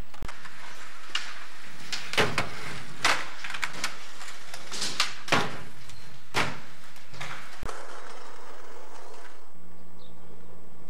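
Skateboard pops, landings and truck hits: a run of sharp wooden knocks and clacks over several seconds, the loudest in the middle. A steady low hum comes in near the end.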